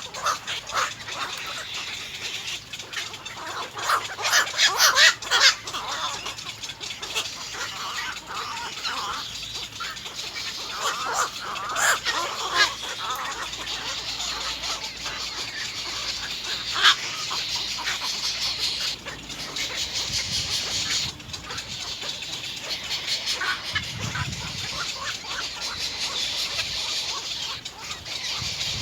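Little egret chicks calling at the nest in rapid, repeated chattering bursts while begging for food, loudest a few seconds in.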